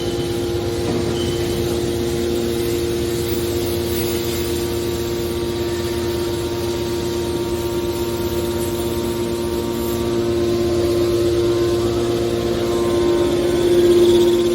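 Hydraulic scrap-metal baler running: its power pack's motor and pump make a steady hum with a constant whine, which grows louder near the end.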